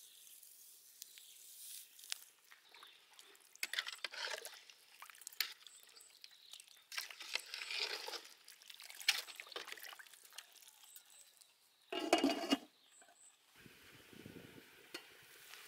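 A ladle stirs vegetables and broth in a large aluminium soup pot, with small splashes and clinks against the pot. Near the end comes one louder metallic clatter as the aluminium lid is set on the pot.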